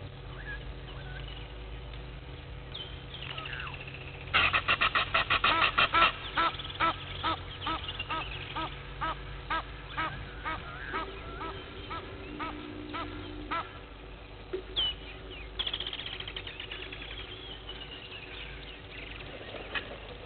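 Blacksmith lapwing calling: a loud series of short, sharp 'tink' notes begins about four seconds in, about five a second at first, then slows to two or three a second and stops about halfway through. After a single call, a second rapid run of notes starts about three-quarters of the way through and fades away.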